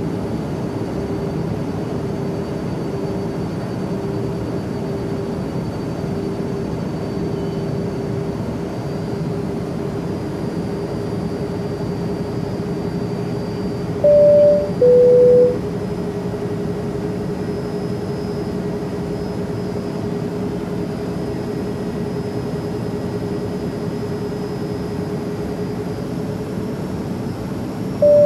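Steady in-flight airliner cabin drone: even engine and air noise with a constant hum. About halfway through, a two-tone cabin chime sounds once, a higher note then a lower one.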